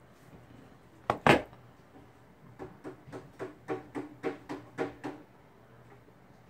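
Small hand-held parts being handled: two sharp clicks about a second in, then an even run of about ten lighter clicks, some four a second, as the parts are worked in the fingers.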